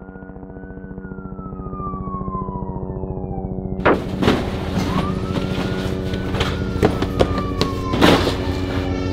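A siren wailing in a slow rise and long fall, twice, over a low pulsing drone. About four seconds in, a denser layer cuts in with a run of sharp hits, the loudest near the end.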